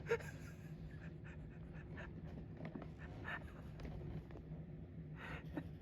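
A sleeping cat snoring: soft, irregular breathy rasps over a steady low hum, with one sharp click just at the start.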